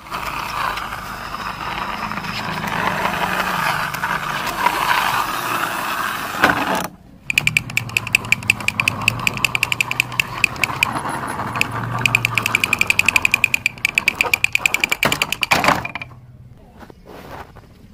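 Small plastic toy cars pushed along wooden planks, their wheels and gearing whirring, then a fast, even run of plastic clicks from about seven seconds in that stops shortly before the end.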